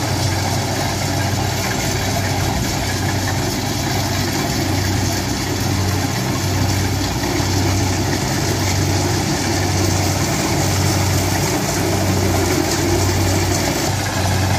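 Kubota DC-70 combine harvester's diesel engine running steadily, with a low throb that pulses about once a second.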